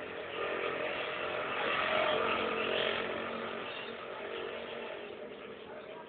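A motor vehicle going past, its engine noise growing louder over the first two seconds and then fading away.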